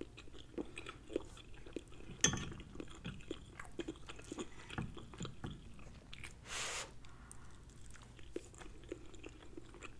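Close-miked chewing and small wet mouth clicks of someone eating tender roasted chicken thigh meat. A sharper click about two seconds in and a short hiss a little past halfway.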